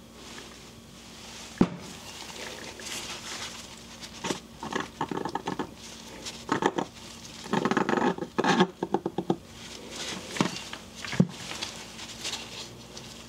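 Gloved hands handling a Bafang e-bike hub motor as its side cover is worked off: scattered knocks and clicks of the metal housing and parts, with a run of rattling clatter about eight seconds in.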